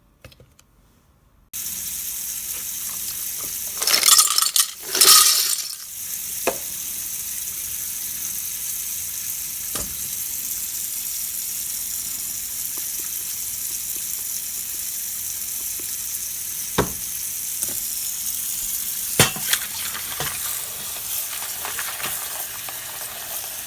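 Water running steadily into a bowl of plastic keycaps, with a loud clatter of keycaps about four to five seconds in and a few single clicks later on.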